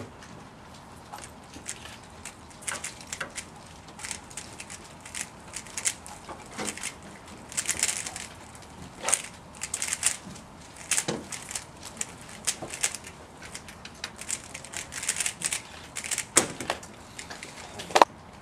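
A 3x3x3 Rubik's cube being turned fast during a speedsolve: quick runs of plastic clicking and clacking from the cube's layers, with short pauses between runs. Near the end comes the loudest sharp knock, as the cube is put down and the hands slap the stackmat timer to stop it.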